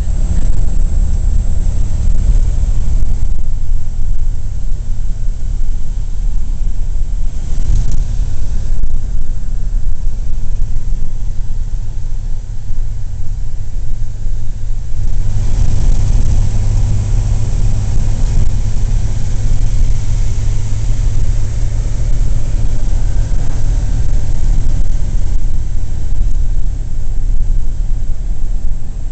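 Cabin sound of a 1941 Plymouth under way: the flathead six-cylinder engine running steadily with a low rumble, under road and wind noise. The rushing noise grows louder about halfway through.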